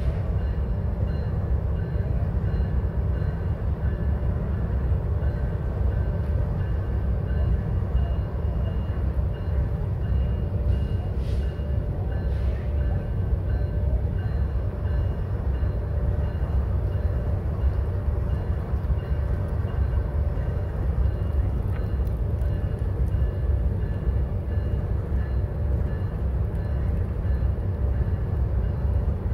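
GE diesel locomotives idling: a steady low rumble that holds unchanged, with no throttle-up or movement.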